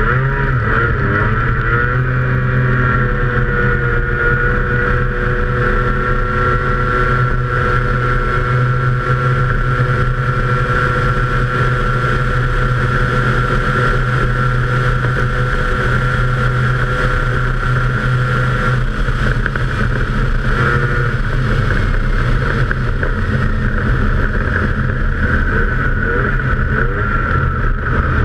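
Snowmobile engine launching hard off the start line, its pitch climbing steeply in the first two seconds, then running flat out at a steady high note down the straight. The note shifts about two-thirds of the way through and eases slightly near the end.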